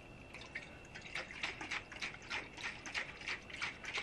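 Takeya kids insulated water bottle shaken hard upside down, the water inside sloshing in a quick, even rhythm with each shake, starting about a second in. It is being shaken to test the closed spout lid for leaks.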